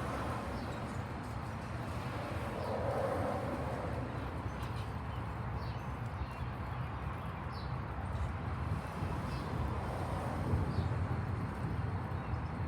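Steady rain with wind rumbling on the microphone. A few short, high chirps come through about once a second.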